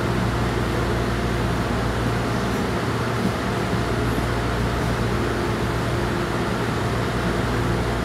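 Steady hum inside an MTR A-train (Adtranz-CAF electric multiple unit) passenger car, its air-conditioning and onboard equipment running with a few faint steady tones and no change in pitch.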